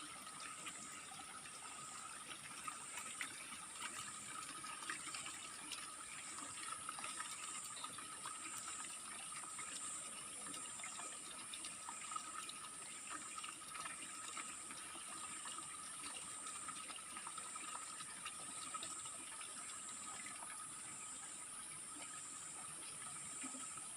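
Water rushing and splashing steadily at a waterfall, with a shrill, steady insect buzz overhead that wavers about once a second, and a second, lower steady whine.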